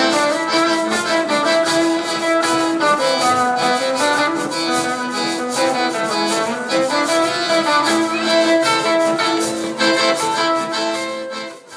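Live world-music band playing: a cello carrying the melody over accordion and electric guitar, with a steady beat. The music starts dying away at the very end.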